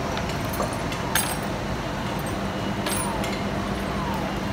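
A few sharp metallic clinks from the lifeboat davit's hook and block fittings, about a second or two apart, over a steady low hum.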